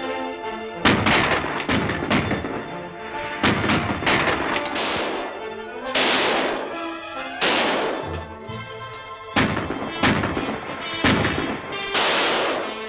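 A gunfight's shots: more than a dozen sharp gunshot cracks at uneven intervals, each with a ringing tail, over orchestral background music.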